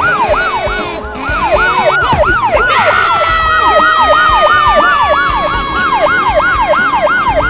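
Emergency-vehicle siren in a fast yelp, about four up-and-down pitch sweeps a second. About three seconds in, a second, steadier siren tone joins it and slides slowly down in pitch.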